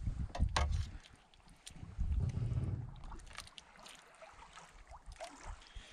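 Metal ladle clinking a few times against a steel cooking pot and a bowl while soup is served, over a low gusty rumble.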